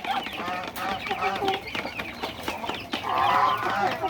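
A flock of chickens clucking over one another at feeding time, with one longer held call about three seconds in.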